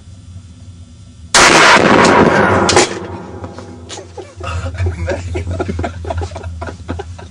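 A gunshot about a second and a half in, loud enough to overload the recording, with a loud noisy tail lasting about a second and a half before it drops away.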